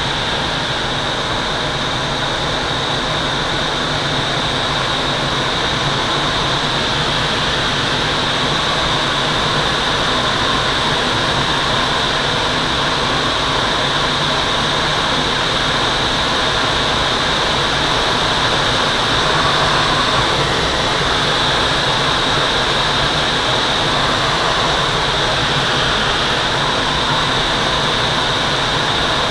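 Steady rush of air streaming past the cockpit of a Twin Astir two-seat glider in unpowered flight, descending on approach to land; it swells slightly about two-thirds of the way through.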